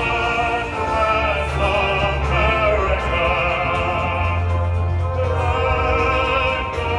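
Music: an operatic-style singing voice with wide vibrato over orchestral backing and a steady low bass.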